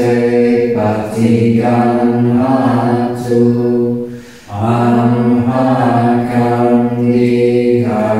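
Chanting of a Buddhist mantra, voices holding long notes over a steady low tone, with a short break for breath a little after four seconds in.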